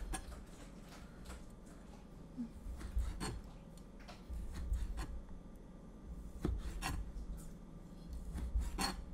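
Kitchen knife slicing hot dogs thinly on a plastic cutting board: soft rubbing strokes of the blade through the meat, with a few sharp, irregular taps of the blade on the board.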